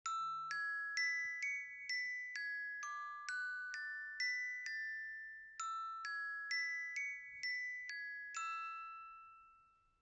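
Countdown-timer alarm: a melody of bell-like chime notes, about two a second, played in two phrases, starting the moment the timer hits zero. The last note rings on and fades away.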